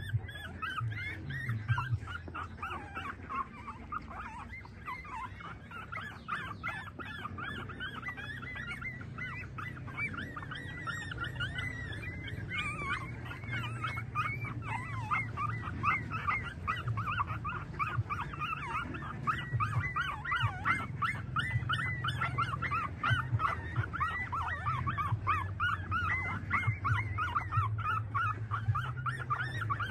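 Newborn puppies squeaking and whimpering as they nurse, many short high squeaks a second, getting busier about halfway through, over a low steady hum.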